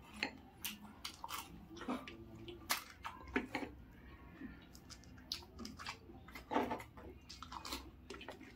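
Crisp panipuri shells being cracked open and stuffed with filling by hand, with wet splashes and drips as they are dipped into the spiced water. The sound is a run of irregular sharp crackles and clicks, a few each second.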